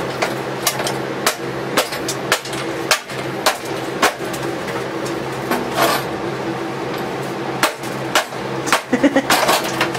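Repeated sharp whacks of a wooden stick striking a black plastic kitchen-mixer housing on a concrete floor, irregular at about one or two a second, pausing midway and coming quicker near the end, over a steady low hum.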